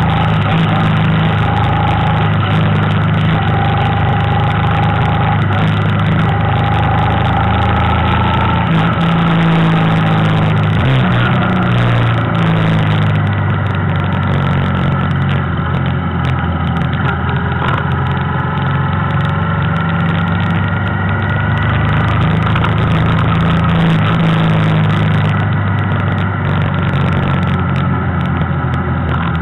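Motor vehicle engine running steadily while cruising along a road, with small shifts in pitch.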